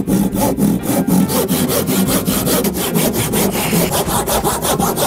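Handsaw cutting through the wood of an old church pew in fast, even strokes.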